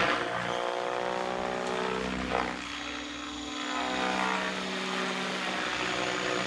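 XLPower 550 electric RC helicopter in flight: its brushless motor and rotor blades give a steady whine with a stack of pitched tones, drifting slightly in pitch as the load changes.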